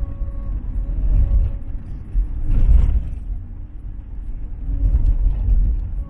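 A moving vehicle: steady low engine and road rumble, with a brief louder burst of noise about two and a half seconds in.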